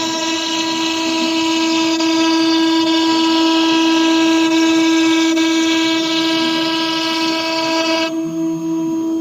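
AKM6090C mini ATC CNC router running with a steady high-pitched whine. Over it, a brighter, harsher whine made of many tones runs until it cuts off suddenly about 8 seconds in, leaving the steady whine.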